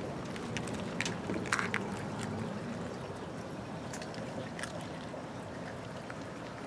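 Steady splashing and trickling of a garden water fountain, with a few light clicks from the plastic treat toy as the cat nudges it.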